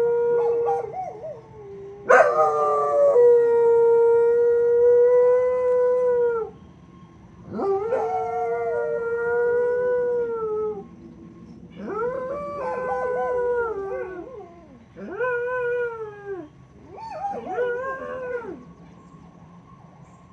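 Hound dogs howling, set off by a siren: about five long howls one after another, each dropping in pitch as it ends, growing shorter toward the end, with a faint steady tone underneath.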